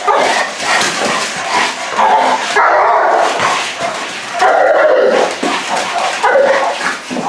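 Dog barking repeatedly with yips and whines, in loud irregular bursts, some of them held for about a second.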